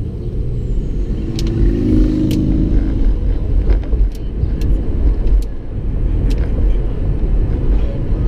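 Car driving on a town street, heard from inside the cabin: a steady low rumble of engine and tyre noise, with a few light clicks and knocks scattered through it.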